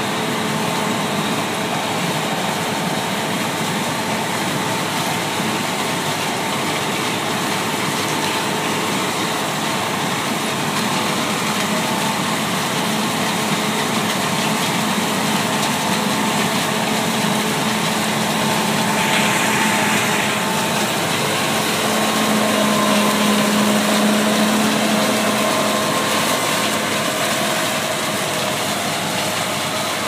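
John Deere 7720 Turbo combine harvesting corn: its diesel engine and threshing machinery run with a constant drone and a few steady tones. It gets a little louder for a few seconds about three quarters of the way through.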